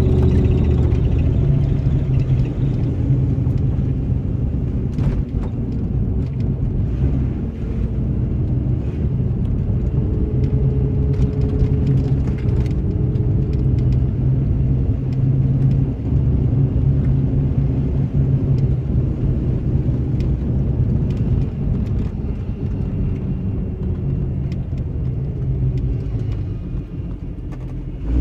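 An old Jeep's engine and drivetrain running at low speed on a rough dirt trail, a steady low rumble heard from inside the cab, with a few light knocks and rattles over bumps.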